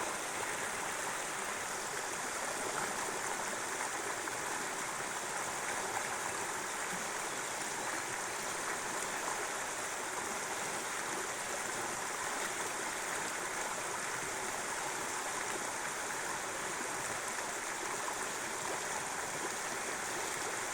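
River water flowing and rippling steadily over shallows, a continuous even rushing.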